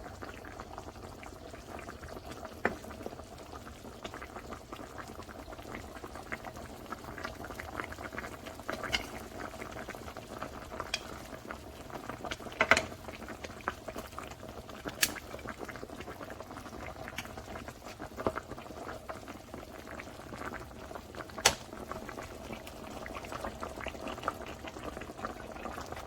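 A chicken, black bean and vegetable mixture simmering in an electric skillet, bubbling steadily with frequent small pops and a few sharper, louder ones.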